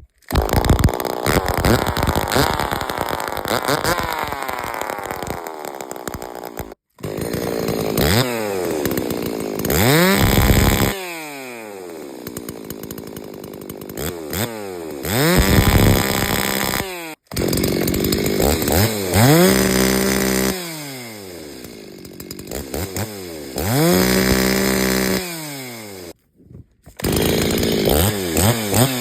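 Stihl 024 two-stroke chainsaw, its muffler's centre baffle gutted, running loud and being revved up and back down to idle again and again. The sound cuts out briefly three times.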